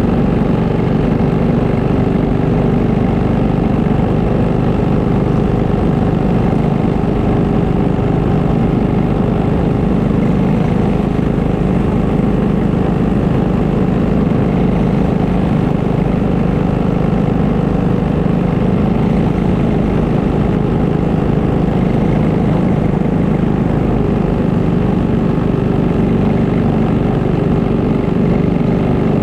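Several go-kart engines idling steadily with the karts stopped on the track, a low, even engine note with no revving.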